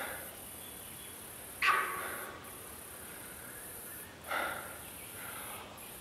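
Sambar deer doe honking its alarm call after being spooked: a short, loud honk about a second and a half in, the loudest, and another about four and a half seconds in, with a fainter one right at the start.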